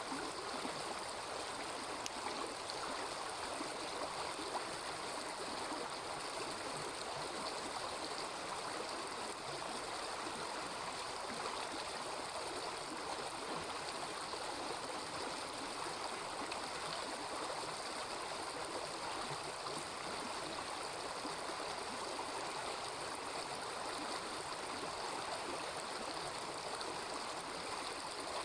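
Small river babbling steadily over stones, an even rushing and gurgling of flowing water.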